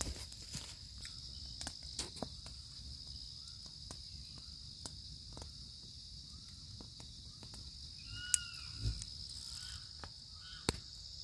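Chorus of night insects, a steady high-pitched trill, with short repeated chirping calls joining in the second half and a few scattered sharp clicks.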